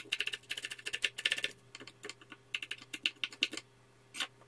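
Chef's knife chopping fresh cilantro on a wooden cutting board: quick runs of sharp taps with short pauses between, and a few single strikes near the end.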